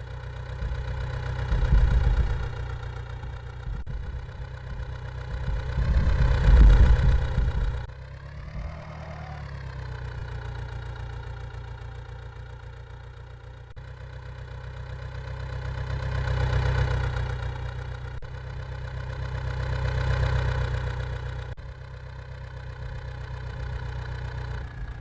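A vehicle engine idling steadily, rising in revs and loudness about four times before settling back.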